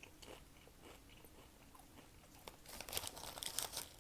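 Doritos tortilla chips being chewed close to the microphone: faint crunching at first, then loud, dense crunching from about two and a half seconds in.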